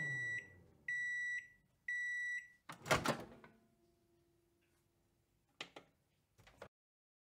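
Microwave oven finishing its cycle: its running hum stops, it gives three beeps about a second apart, and then the door pops open with a loud clunk. Two small clicks follow near the end.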